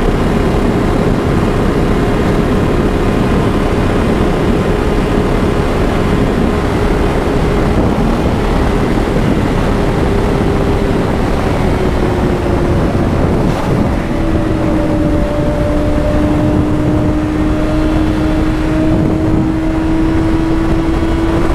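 Motorcycle engine running at steady cruising revs under heavy wind rush on the microphone. About halfway through, the engine note eases lower and holds there.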